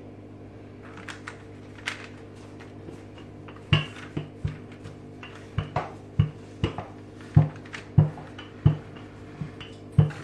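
Wooden rolling pin rolling out a sheet of dough on a silicone mat, knocking on the table in a run of sharp thuds, about one or two a second, that starts a few seconds in, over a faint steady hum.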